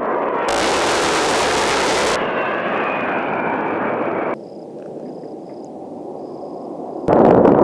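Jet noise from an A-10 Warthog's engines in several spliced clips that change abruptly: a loud rush for about four seconds, with a faint falling whine in it, then a quieter stretch, then loud again near the end.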